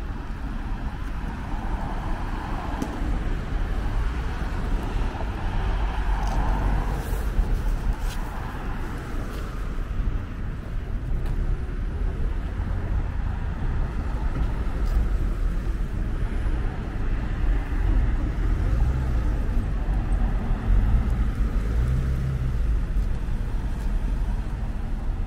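City street traffic noise: a steady low rumble of passing cars.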